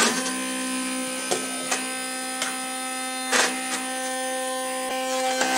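Steady electrical hum from an Atomberg BLDC mixer grinder base with its motor not grinding, with a few light knocks as the jar and lid are handled and the jar is lifted off.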